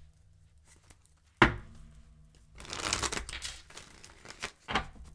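Tarot cards being handled and shuffled, a crinkly rustle through the middle, with a sharp knock about a second and a half in and another near the end.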